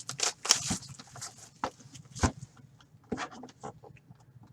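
Crinkling and rustling of hockey card pack wrappers being handled, in irregular short crackles with brief gaps.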